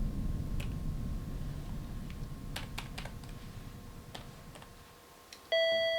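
A low rumble fades away over several seconds, with a few faint clicks. Near the end, the first, higher note of a two-tone electronic house door chime starts and holds steady.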